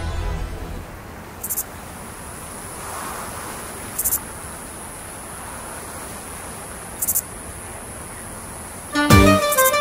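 Countryside ambience: a steady hiss with a thin, very high insect trill, and three short high chirps a few seconds apart. Music comes in near the end.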